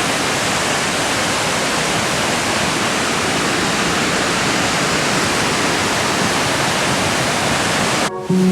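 Loud, steady rush of whitewater, even and unbroken; it cuts off suddenly near the end.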